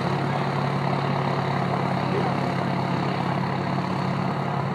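Oliver 2255 tractor's Caterpillar V8 diesel running steadily at low, even revs, no longer under load at the end of its pull.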